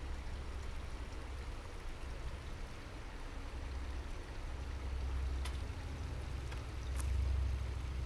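Steady rush of flowing water from a shallow, spring-fed stream, heavy in low rumble with a faint hiss above it, growing a little louder near the end; a few faint clicks.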